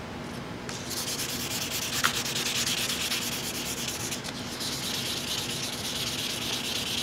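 Fine 600-grit wet-or-dry sandpaper rubbing back and forth over an oiled walnut rifle stock, wet sanding with Tru Oil. It starts about a second in and carries on as a steady scratchy hiss, with a small click about two seconds in. The paper is hardly cutting, which the sander puts down to the stock already being very smooth.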